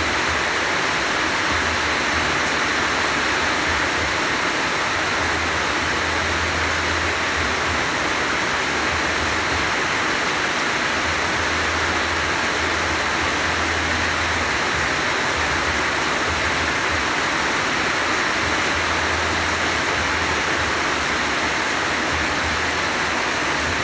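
Heavy rain falling steadily, a dense even hiss with a low rumble that comes and goes.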